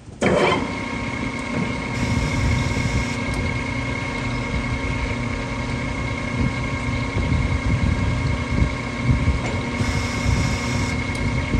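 Precision Matthews metal lathe starting abruptly and running steadily with a constant whine from its drive. It is single-point threading a steel shaft, and two brief hissing passes of the threading tool come through, about two seconds in and again near the end.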